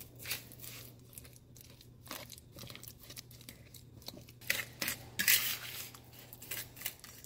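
A fork mashing ripe bananas into brown sugar in a plastic mixing bowl: irregular squishing and scraping strokes of the tines against the bowl, loudest about five seconds in.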